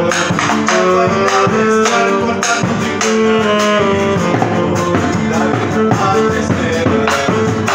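A gato, Argentine folk dance music, played on tenor saxophone, nylon-string guitar and bombo legüero. The saxophone carries a melody of held notes over the strummed guitar and the drum's beat, with no singing.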